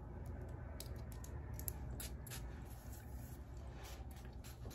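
A few faint clicks and taps as a glass perfume bottle is handled in long-nailed fingers, over a steady low room hum.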